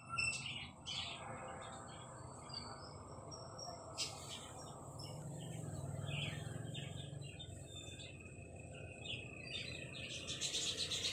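Small birds chirping in many short, scattered calls over a steady low hum, with one sharp click about four seconds in.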